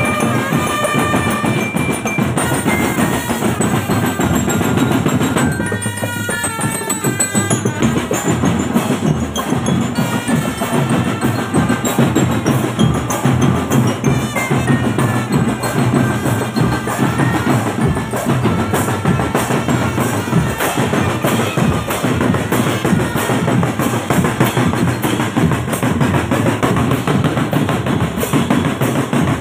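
Marching drum band playing on the move: snare and bass drums keep up a dense, steady beat with rolls, and short melodic phrases sound over the drums now and then.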